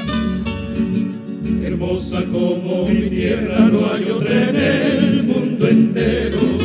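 Song intro: plucked guitars over a steady bass line, joined about a second and a half in by voices singing wordlessly in harmony.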